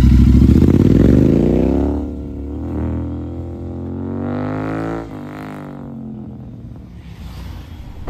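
Royal Enfield Continental GT650 parallel-twin engine on a full-system exhaust, accelerating. The note climbs steadily in pitch and grows fainter after about two seconds. It drops sharply about five seconds in, as at a gear change, then runs on quieter.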